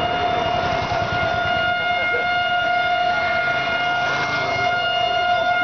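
ALCo diesel locomotive's horn sounding one continuous steady note, held without a break.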